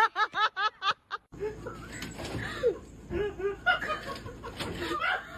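A dog's excited high-pitched yips and whines. A fast run of short yips in the first second breaks off abruptly. Uneven whining calls follow.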